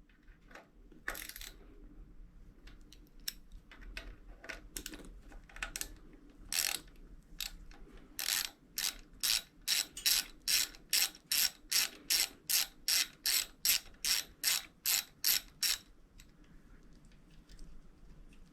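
A hand ratchet clicking while it loosens the screws of the motorcycle's right-hand handlebar switch housing. It gives scattered clicks at first, then a steady run of about three clicks a second for some seven seconds, stopping a few seconds before the end.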